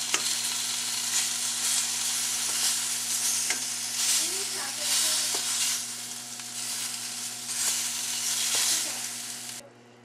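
Slices of country ham sizzling in a hot frying pan in a reduced soda glaze, with a few light clicks of metal tongs against the pan as the meat is turned. The sizzling stops abruptly just before the end.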